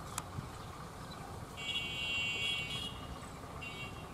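Diesel locomotive approaching with a steady low rumble. A high buzzing tone sounds twice over it, about a second and a half in for just over a second and again briefly near the end.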